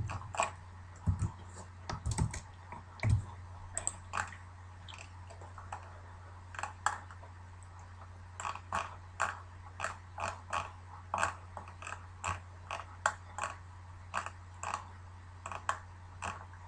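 Computer keyboard keys being pressed: quiet, irregular clicks, a couple to a few a second and more frequent in the second half, over a faint steady low electrical hum.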